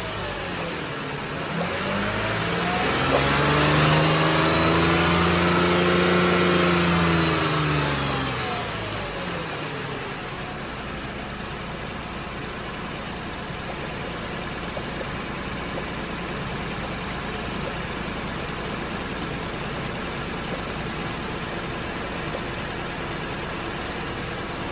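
Lexus RX350's 3.5-litre V6 coming down from a rev at the start, revved up again about two seconds in and held for a few seconds, then falling back to a steady idle about ten seconds in. The engine is being revved during coolant bleeding to speed up the water pump and push air bubbles out of the cooling system.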